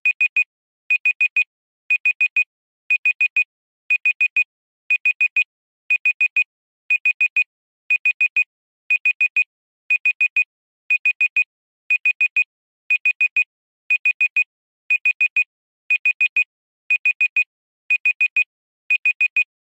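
Digital timer alarm beeping in groups of four short, high beeps, one group each second, signalling that the countdown has reached zero.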